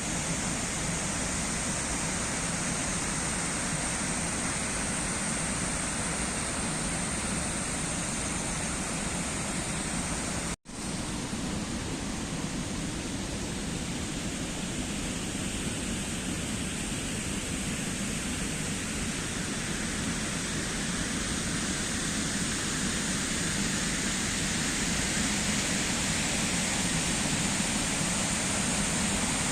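Jagala waterfall: a steady rush of falling water, dropping out for an instant about ten seconds in.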